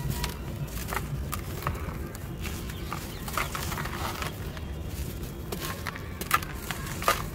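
Dry sand-cement lumps crumbling in bare hands, with loose sand and grit pouring back into the bucket: a run of irregular gritty crackles and rustles, with two sharper cracks near the end.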